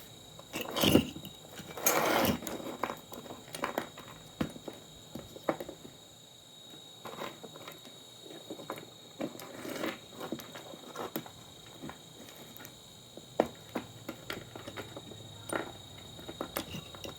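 Irregular clicks, knocks and rustles of objects being handled, with two louder rustling scrapes about one and two seconds in. A faint steady high-pitched tone sits underneath throughout.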